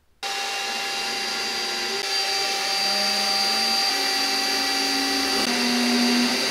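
Handheld vacuum switching on just after the start and running steadily, held at a drill boring into a carbon fiber trunk lid to catch the chips. Lower tones from the drill shift in pitch a few times.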